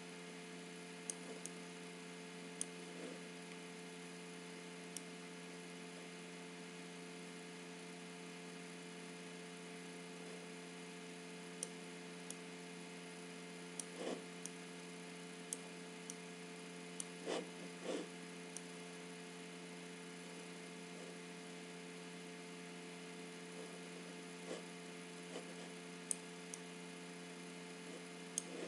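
Steady electrical hum with several fixed tones, with a dozen or so scattered computer mouse clicks, a few close together a little past the middle, as on-screen sliders are clicked and dragged.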